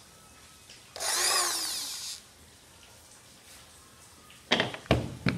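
Power drill with a wooden board fixed in its chuck, run in one short burst of about a second, its pitch rising and then falling as it spins up and winds down. Near the end come a few sharp knocks of the wood and drill being handled and set down.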